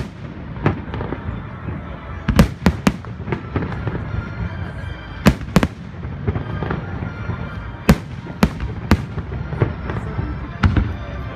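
Aerial firework shells bursting: a string of sharp bangs at irregular intervals, some coming in quick pairs and threes, over a continuous low rumble from the display.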